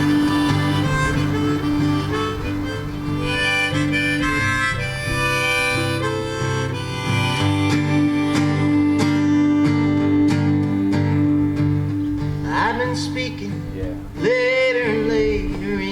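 Live folk music: a harmonica playing a melody of held notes over a strummed acoustic guitar.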